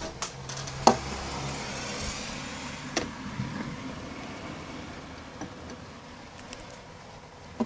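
Thunder rumbling low and slowly fading, over a steady hiss. Two sharp clicks come about a second and three seconds in.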